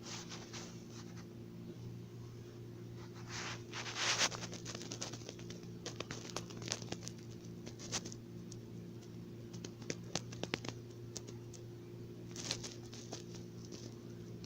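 Rustling and light scratching on bedding or fabric: two soft rustles and a run of small clicks in between, over a steady low hum.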